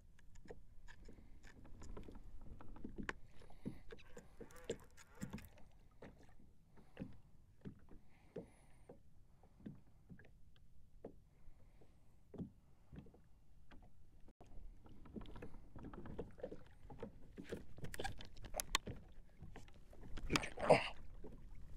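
Water lapping against a kayak hull, with scattered small clicks and knocks from handling fishing gear. A louder burst of sound comes near the end as a fish is hooked and the rod bends hard.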